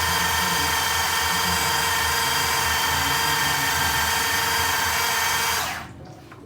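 Small electric grinder (mini food chopper) running steadily with a motor whine while it chops onion, bell pepper, garlic and ginger, then switching off near the end.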